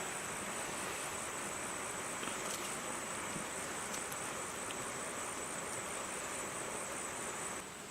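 An insect trilling at a single high pitch, rapid and steady, over an even background hiss; both cut off suddenly near the end.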